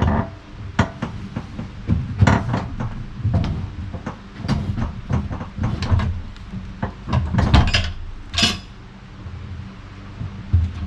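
Irregular knocks and clunks, with a longer scrape about eight and a half seconds in, as a big log is heaved over by hand on a portable sawmill's bed.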